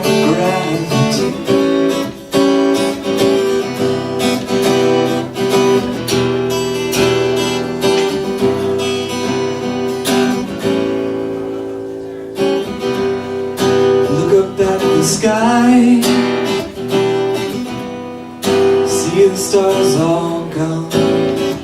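Acoustic guitar strummed and picked through an instrumental passage of a song, with a steady note ringing under the chords and a short dip in level about halfway.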